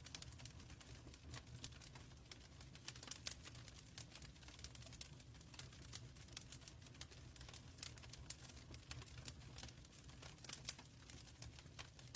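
Fireplace wood fire crackling faintly: irregular sharp pops and ticks over a steady low rumble of the burning fire.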